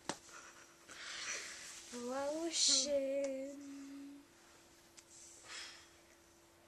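A girl's voice sings the word "lotion" in a drawn-out, sing-song way, about two seconds in, holding the last note. Short hissy noises come before and after it, and a faint steady hum runs underneath.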